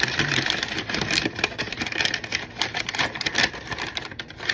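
Packaging being handled and pulled open, rustling and crinkling with many quick crackles.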